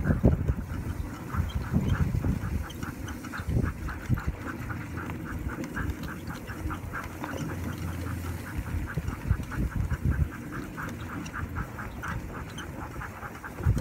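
Wheeled dog-sled training cart rolling over packed snow behind a husky team: an uneven low rumble with a rhythmic squeak about five times a second.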